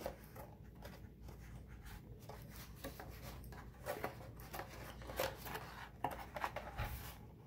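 Purple cardstock being handled and turned over in the hands: faint, irregular paper rustles and light taps.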